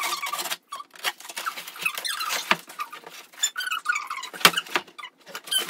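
Large cardboard box and its packing being pulled and worked open by hand: cardboard and packing rubbing and scraping, with many squeaks and sharp clicks.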